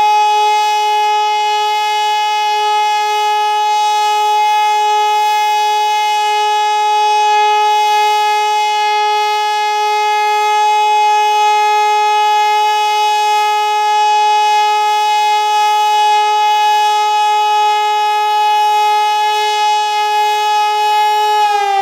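Hörmann HLS 273 compressed-air high-power siren sounding one long steady tone, the German "Entwarnung" all-clear signal that means the danger is over. Near the end the pitch begins to fall as the siren winds down.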